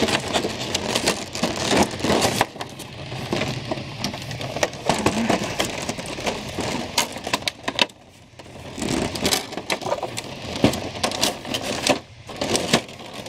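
Clear plastic packaging bags crinkling and rustling in a steady run of small crackles as they are handled around an action figure and its cardboard tray, easing off briefly about eight seconds in.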